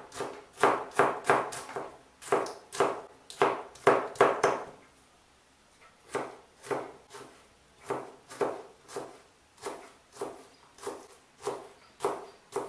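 Kitchen knife chopping a peeled onion on a cutting board: a steady series of sharp knocks, about three a second, with a short pause about five seconds in before the chopping resumes.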